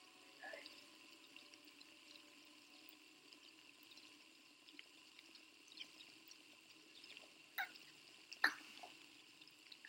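Near silence: faint room tone broken by a few small clicks, the two clearest shortly before the end.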